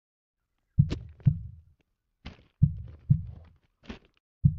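Cinematic heartbeat sound effect: deep double thumps, three pairs, with the beats in each pair about half a second apart, and a few short higher hissy accents between them.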